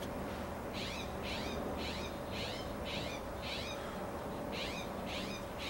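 A bird calling faintly in the background: a string of short, high chirps, each falling in pitch, repeated about twice a second.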